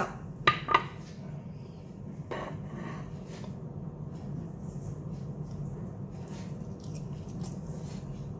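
Ceramic plates clinking twice in quick succession about half a second in, and another softer knock a couple of seconds later, as a piece of fried chicken is moved from the serving platter to a plate. Then faint mouth sounds of eating over a steady low hum.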